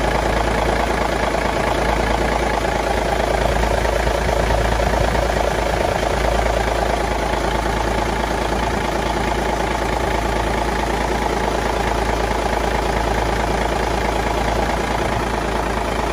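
Naturally aspirated Cummins NHC 250 diesel engine idling steadily.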